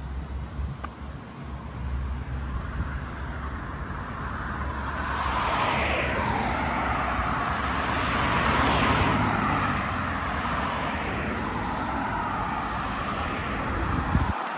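A road vehicle passing, its tyre and engine noise swelling to a peak about halfway through and then fading slowly, over a low rumble that stops suddenly near the end.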